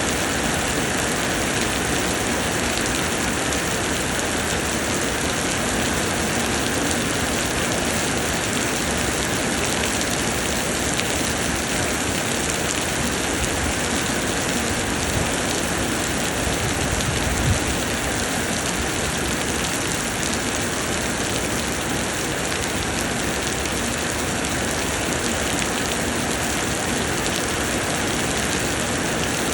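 Heavy summer rain pouring steadily, with one brief low thump about two-thirds of the way through.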